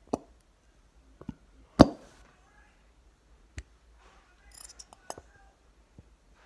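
Scattered sharp clicks and knocks of a plastic glue bottle and mixing bowl being handled while clear glue is emptied into the bowl. The loudest knock comes nearly two seconds in, with a brief rustle a little past the middle.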